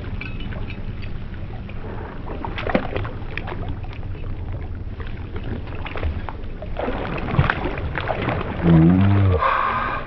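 Shallow creek water splashing and sloshing as a mink swims after a fish among the rocks, with many small sharp splashes over a steady low rumble. Near the end a short voice-like sound rises and falls.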